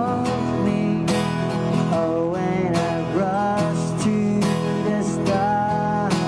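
Acoustic guitar playing, a picked and strummed melody over chords, with some melody notes bending in pitch.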